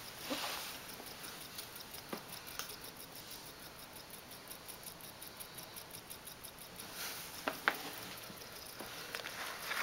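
Faint rapid ticking and rattling from a homemade battery-and-coil electric motor on a toy jet, with a couple of sharper clicks about three-quarters of the way in.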